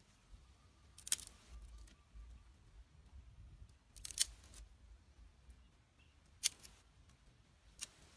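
Dry twigs snapping as side shoots are broken off a thin dry branch by hand: four short, sharp cracks a second or more apart.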